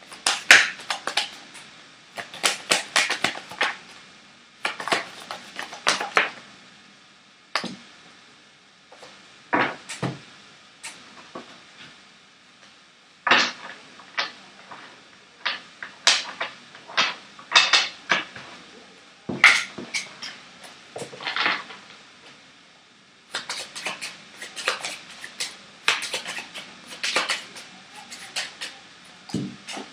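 Playing cards being shuffled by hand and laid down on a wooden table: bursts of quick snapping clicks and taps, with short pauses between the bursts.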